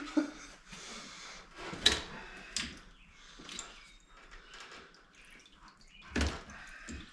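A few scattered clicks and knocks of parts and tools being handled while stripping a truck's front end, the loudest a thump about six seconds in.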